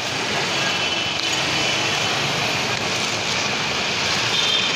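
Steady street traffic noise from motorcycles, tricycles and cars running past.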